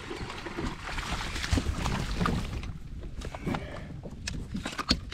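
Water splashing as a hooked largemouth bass is hauled out of the matted weeds to the kayak, followed by a few sharp clicks and knocks as it is handled in the boat.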